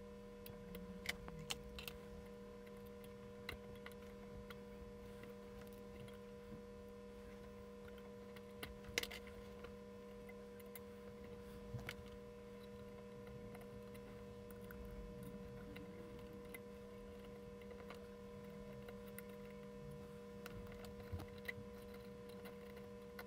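Scattered small sharp clicks and ticks of fine steel tweezers prising at the twisted metal retaining tabs of a photomultiplier tube's dynode stack, the loudest about nine seconds in, over a faint steady electrical hum.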